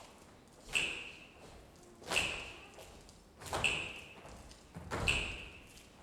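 A quiet, sparse stretch of the dance soundtrack: a single percussive hit with a brief bell-like ring, repeating evenly about every second and a half.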